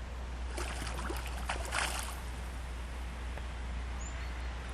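Water splashing for about a second and a half as a hooked common carp thrashes at the surface while being played, then a steady low water-and-wind background.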